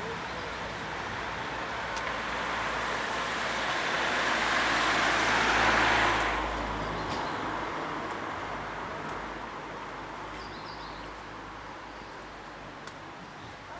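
A road vehicle passing close by, with tyre and engine noise swelling to a peak about six seconds in, then falling away and fading.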